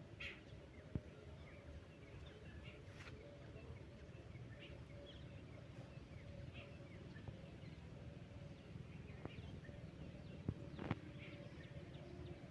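Lovebirds chirping: scattered short, high chirps over a low background rumble, with a few sharp clicks about a second in and twice near the end.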